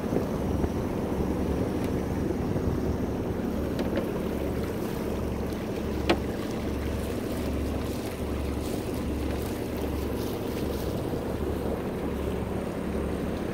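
Sailboat's Yanmar inboard diesel running steadily under way, a low even throb beneath water rushing along the hull and wind on the microphone. A single sharp click about six seconds in.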